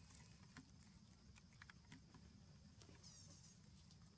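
Near silence, with a few faint soft clicks and rustles and a brief faint high chirping about three seconds in.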